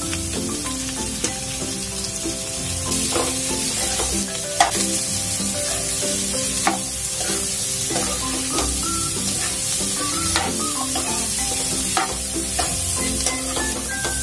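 Diced watermelon rind sizzling in hot mustard oil with spices in a kadai, stirred with a metal ladle, with a few sharp knocks of the ladle against the pan, the loudest about four and a half seconds in.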